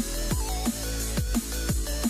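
Background electronic dance music with a steady beat: deep kick drums that drop in pitch, about two a second, under a wavering synth melody.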